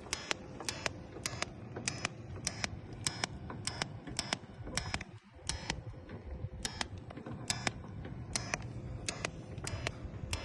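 Sharp metallic clicks, irregular at about two a second, over a steady low hum during fence welding work, with a brief lull about five seconds in.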